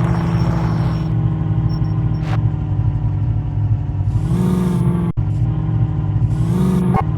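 Jeep engine running steadily, with the revs rising briefly twice: about four seconds in and again near the end.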